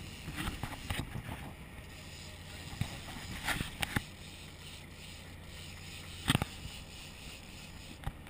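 Boat engine idling as a steady low drone, with a few sharp knocks on deck, the loudest about two-thirds of the way through.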